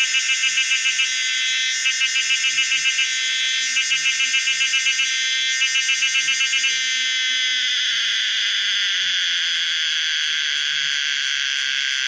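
Pomponia linearis cicada call: four short phrases of rapid pulses, about nine a second, each around a second long and repeating every two seconds. About seven seconds in, they give way to one continuous high buzz.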